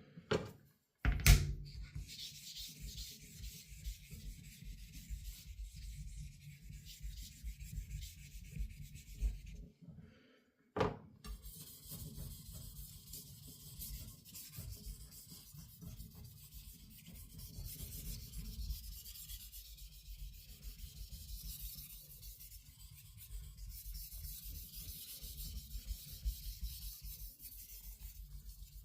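Japanese carbon steel knife blade rubbed back and forth on an Aizu Japanese natural whetstone in continuous scraping strokes, sharpening and polishing the bevel. A sharp knock about a second in and another about eleven seconds in, after a brief pause in the strokes.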